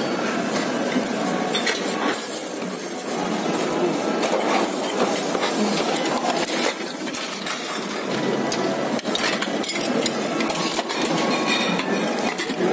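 Dishes and cutlery clinking: many small sharp clicks and knocks of utensils on plates, over a steady background hubbub.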